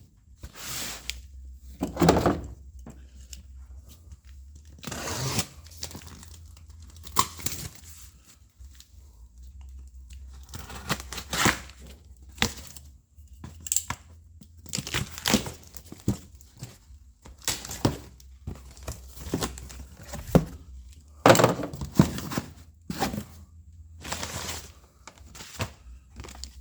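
Packaging being torn open and handled: irregular bursts of tearing and crinkling, with occasional thunks as parts are moved.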